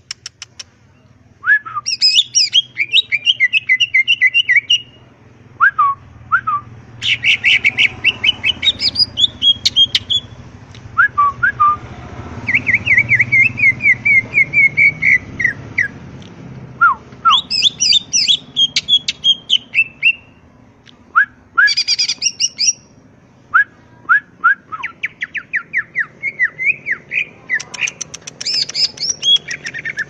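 A caged male cucak ijo (green leafbird) singing loudly in bursts: rapid rattling trills and sharp whistled notes sliding downward, in phrases of one to four seconds with short pauses between them. A steady low hum sits underneath.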